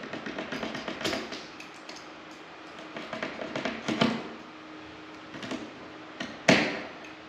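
Scraping and tapping from work on a tight-fitting duct opening, with a few sharp knocks; the loudest knock comes near the end.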